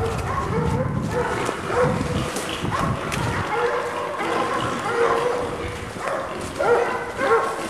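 Hog-hunting bay dogs barking and yipping in quick, repeated calls, baying wild hogs. A low rumble runs under the first three or so seconds, then drops away.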